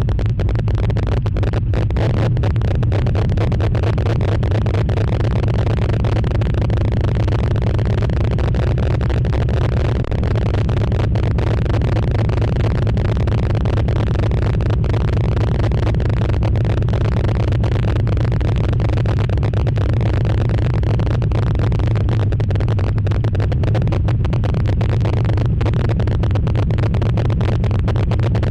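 Chevy V8 engine in a Nissan Frontier running steadily at an even speed, without revving up or down.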